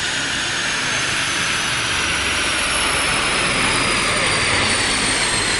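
A car running on a chassis dynamometer: a loud, steady roar with a thin high whine that slowly falls in pitch as the drivetrain and rollers wind down.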